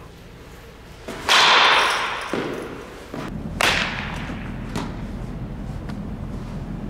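A baseball bat hitting a ball about a second in, a loud sharp crack that rings on in a large indoor hall. A few seconds later comes a second, shorter bat-on-ball hit, then a faint knock about a second after that.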